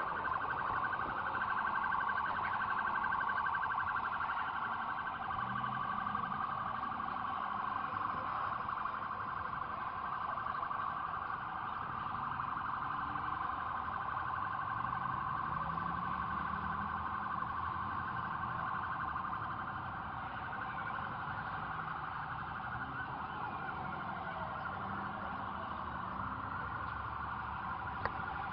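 A steady, fast-pulsing electronic alarm tone sounds without a break, with fainter gliding siren tones behind it near the end.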